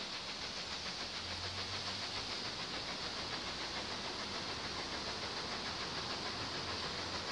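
Steam locomotive approaching from a distance, its exhaust beats coming as a quick, even chuffing over a steady hiss, slowly growing louder.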